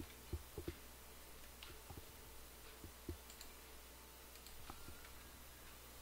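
Faint, irregular computer mouse clicks: two close together about half a second in, then single clicks around two, three and nearly five seconds in. Under them is a steady low electrical hum.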